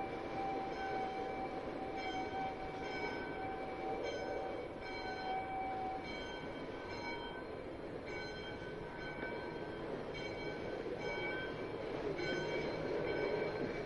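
A steady rumbling noise with a ringing tone held through the first half, and short, bell-like ringing tones that repeat throughout.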